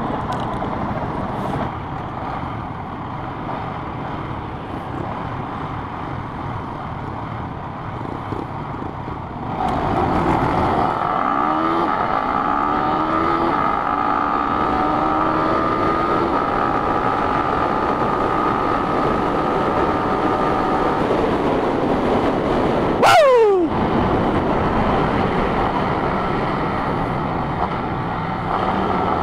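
Yamaha Sniper 150's single-cylinder four-stroke engine running under way, with road and wind noise. The engine picks up speed about ten seconds in, its pitch rising and then holding steady. Near three-quarters of the way through there is one brief loud sweep falling sharply in pitch.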